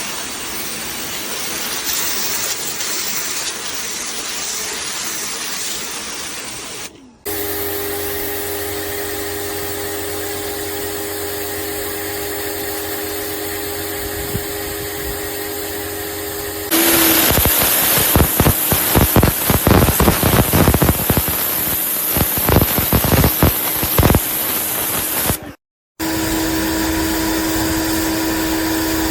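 Compact electric pressure washer heard in several short cuts. First a steady spray hiss. Then the motor and pump run with a steady hum. Louder spraying follows, with rapid crackling spatter, and the hum returns near the end.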